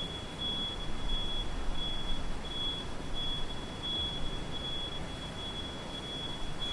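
City street traffic rumble with a steady high-pitched electronic beep sounding continuously over it, wavering slightly in strength.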